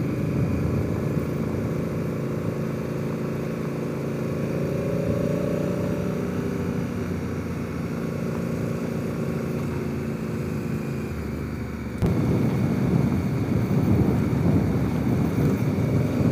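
Honda Africa Twin's parallel-twin engine running at a steady riding speed on a dirt road, with a faint steady whistle in the rider's helmet. About twelve seconds in, the sound switches abruptly to a louder, rougher rumble.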